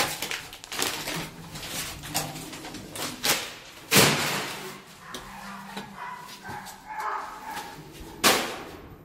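Sharp thumps and bangs of a parcel courier moving hurriedly through a building hallway, loudest about four seconds in and again near the end.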